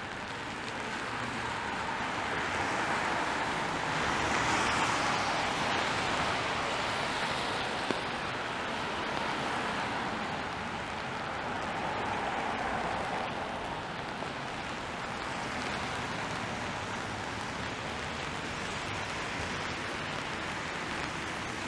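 Rainy street ambience: steady hiss of rain and car tyres on wet pavement, swelling as a car passes about four seconds in and again around twelve seconds.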